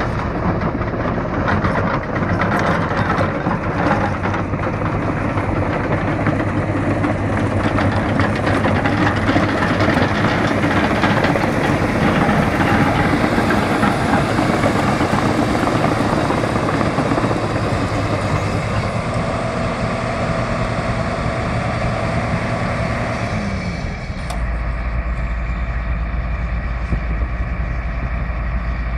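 A Case CX220 crawler excavator's diesel engine runs under load while its steel tracks clank and rattle as it travels. After about 24 seconds the sound changes abruptly to a steady, deep, low rumble.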